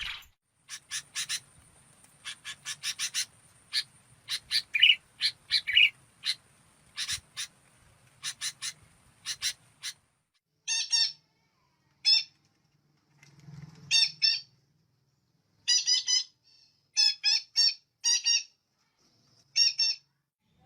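Songbird calls: quick, sharp chirps repeated irregularly over a faint high hiss for about ten seconds, then, after a short silence, a different bird giving short bright calls in small clusters.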